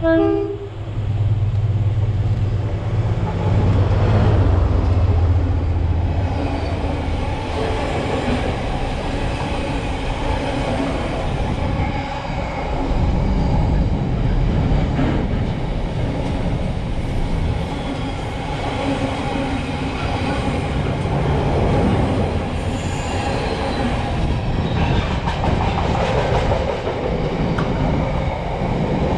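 A train passing at close range: a short horn note right at the start, a deep rumble for the first few seconds, then the steady rumble and clatter of wheels on rail for the rest.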